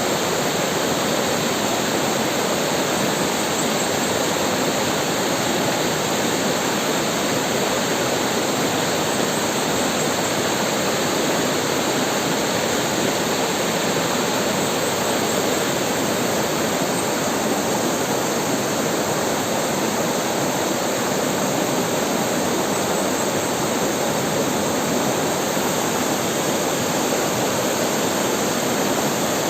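River water rushing and splashing over rocks in a steady, continuous flow.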